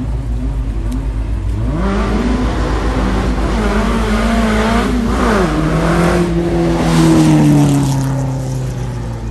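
A car engine accelerating hard past the listener: the pitch climbs, drops sharply about five seconds in as it shifts up, then holds and slowly falls away after the loudest moment near the end.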